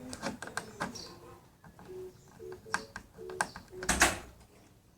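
Scattered small clicks and taps of a screwdriver and plastic parts as a screw is driven into a plastic Beyblade string launcher housing, with a louder rattle of handling about four seconds in.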